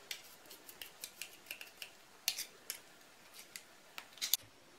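Knife blade scraping pressed garlic off a metal garlic press over a glass bowl: a series of light metallic clicks and scrapes, the two loudest about two seconds in and near the end.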